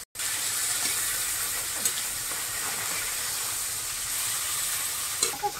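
Fish frying in hot oil, a steady loud sizzle with a couple of sharp spatter pops.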